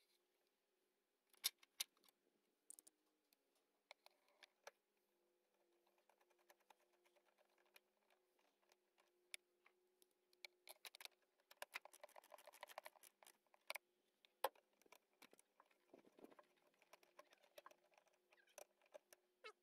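Faint, scattered clicks and taps of plastic air-box parts and a hand tool as the engine air box is refitted, with a quick run of ratchet clicks near the middle.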